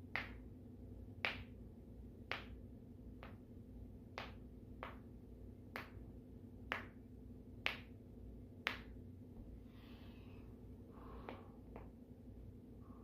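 Joints cracking during a chiropractic adjustment: a series of about a dozen sharp pops, roughly one a second, with a short gap about ten seconds in.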